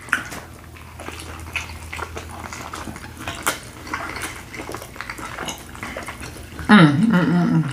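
Close-miked chewing and wet mouth sounds of eating a fajita, with small irregular smacks and clicks. Near the end comes a brief, louder vocal sound.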